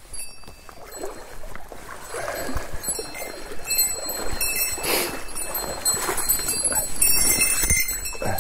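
A small bell jingling again and again with movement, over rustling and scuffing, the jingling heaviest around the middle and near the end.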